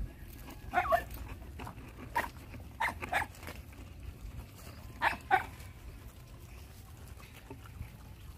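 Puppies giving short, high yelps around a shared food bucket: several brief cries in three clusters, about one, two to three, and five seconds in, over a low steady rumble.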